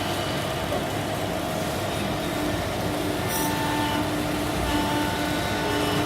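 Steady machine hum with faint steady whining tones, typical of a hydraulic press brake's pump unit running, and a brief high hiss about three and a half seconds in.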